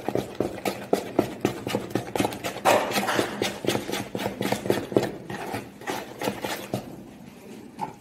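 Wooden spoon beating a cake mixture of eggs, sugar and margarine in a plastic mixing bowl, the spoon knocking against the bowl several times a second; the knocking thins out near the end.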